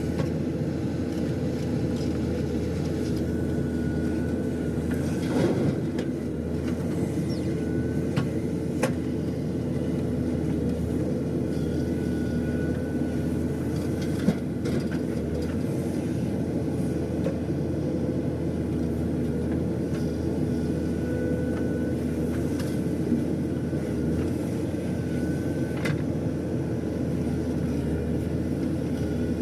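Diesel engine of a JCB 3DX backhoe loader running steadily under work, with a few sharp knocks and brief faint high whines over the drone.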